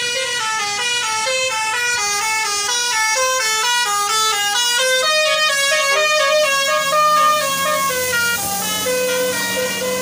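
Basuri telolet multi-tone horn on a tour bus playing a fast melody of short horn notes that step up and down, loud, with a few longer held notes near the end.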